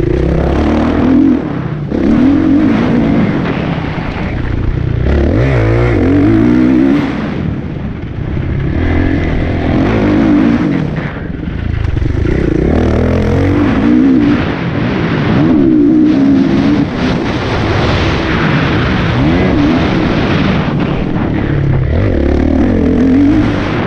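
Kawasaki motocross bike's engine heard from on board, the pitch repeatedly rising under throttle and dropping away as the rider accelerates and backs off around the track.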